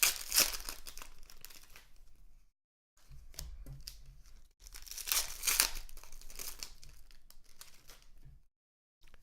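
Foil wrapper of a football card pack crinkling and tearing as it is opened, with the cards being handled. The sound cuts out completely for a moment twice.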